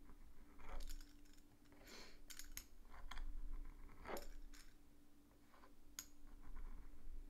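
Small metal hand tool pressing and tapping on a wooden cutting board while the edges of a miniature pie-crust hand pie are crimped and sealed: scattered, irregular light clicks over a faint steady hum.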